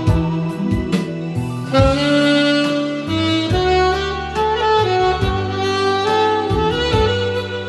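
Alto saxophone playing a melody with held notes, over a recorded backing track with bass and regular drum hits.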